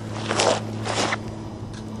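Two short rustling crunches, about half a second apart, like footsteps in dry grass or leaves, over a steady low hum.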